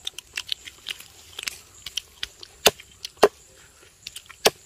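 A run of irregular sharp clicks and cracks, with a few louder snaps in the second half.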